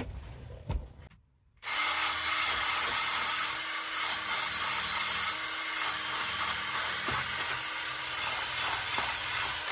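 Makita DHP453 cordless drill spinning an abrasive disc against the face of a steel table saw blade: a steady abrasive hiss with a faint steady motor tone, starting about a second and a half in.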